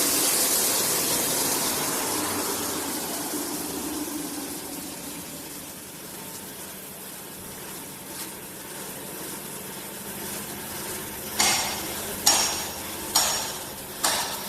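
Four-sided wood planing machine running with a loud, even rushing noise that fades away over the first several seconds. Near the end come four sharp knocks with a short ring, a little under a second apart.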